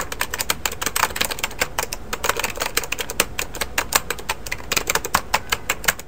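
Fast keyboard typing: a dense, uneven run of key clicks, several keystrokes a second.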